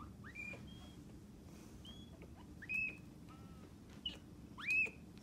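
Bobcat kittens mewing: short, high calls that sweep up and briefly hold, six or seven of them, with the loudest near the end.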